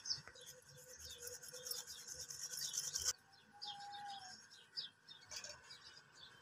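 A dish being scrubbed by hand in a basin: quick rubbing strokes for about three seconds that cut off suddenly. Birds chirp again and again throughout.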